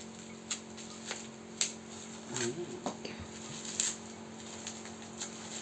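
A few sharp, scattered clicks and taps from objects being handled, over a steady low hum, with a faint voice briefly in the middle.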